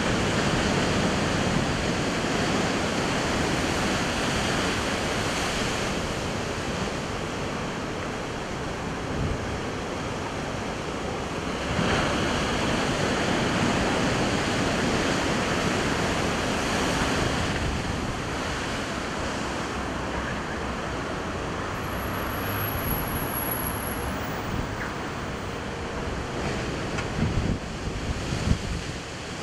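Heavy sea surf breaking against a rocky shore and sea wall: a continuous wash of white water that swells louder now and then as bigger waves hit. Wind buffets the microphone in gusts near the end.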